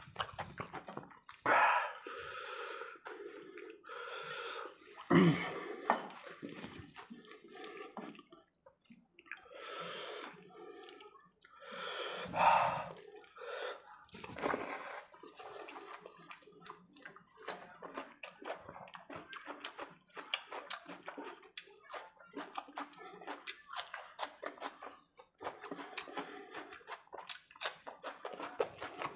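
Close-miked wet eating sounds of khichdi and egg curry eaten by hand: dense, fast chewing and lip-smacking clicks, with a few louder wet, squelchy bursts in the first half.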